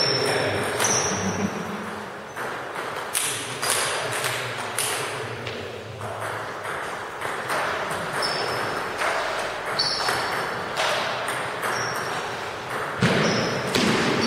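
Celluloid-type table tennis ball clicking off paddles and the table during rallies: irregular sharp clicks, a few per second.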